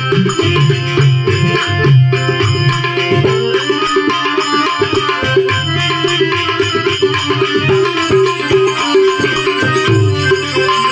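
Instrumental devotional bhajan music: tabla and a rattling hand percussion keep a steady beat under held melody notes.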